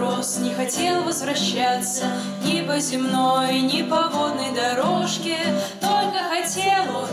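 Women's voices singing a Russian bard song together, accompanied by acoustic guitar.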